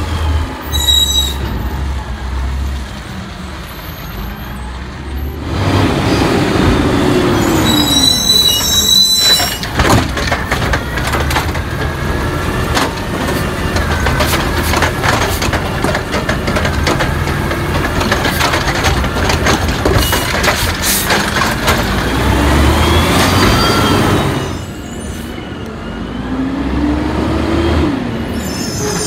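Scorpion automated side-loader garbage truck at work: the diesel engine twice revs up and falls back as the hydraulic arm lifts and dumps a curbside cart, with a long run of clanking and banging as the cart empties into the hopper. Short air-brake hisses come near the start, about nine seconds in and near the end.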